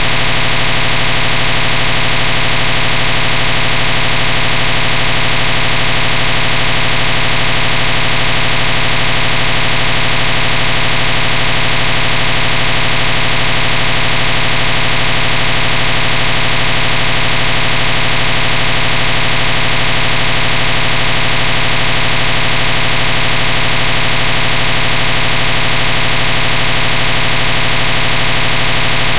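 Loud, steady buzzing hiss like static, with no change or breaks at all.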